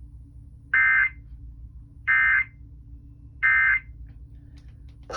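Emergency Alert System SAME End of Message signal: three short, identical bursts of digital data tones, each about a third of a second long and about 1.3 seconds apart, marking the end of a severe thunderstorm warning. A faint low hum runs underneath.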